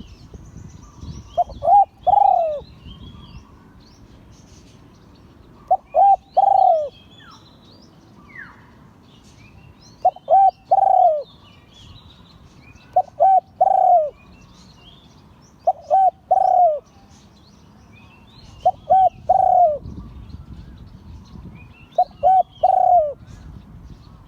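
Spotted dove cooing, seven phrases a few seconds apart. Each phrase is two short coos followed by a longer coo that falls at the end, the call pattern Thai dove keepers call 'luitan'. Small birds chirp faintly in the background.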